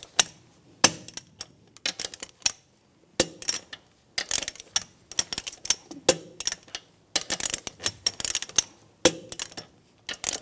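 Torque wrench and socket tightening wheel lug nuts one after another: a sharp metallic clank about every two to three seconds, each followed by a cluster of lighter clicks, as the lug nuts are torqued down to 80 foot-pounds.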